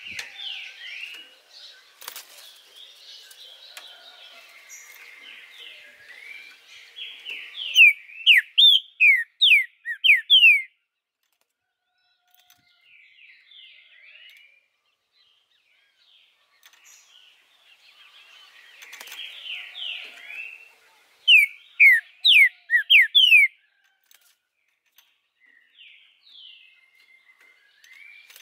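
Green-winged saltator (trinca-ferro) singing: two loud runs of about eight quick, downward-slurred whistled notes, the first about eight seconds in and the second about twenty-one seconds in, each led in by softer twittering notes.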